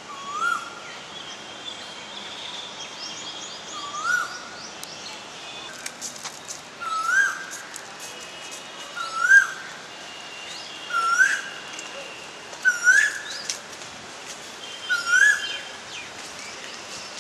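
A bird in the trees calls a short rising note seven times, about every two seconds. Other small birds chirp and trill more faintly at a higher pitch in between.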